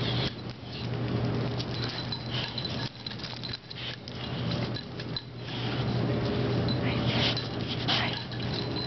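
Two boxer dogs scuffling at tug-of-war: claws pattering and scraping on hard paving and metal collar tags jingling, over a steady low hum.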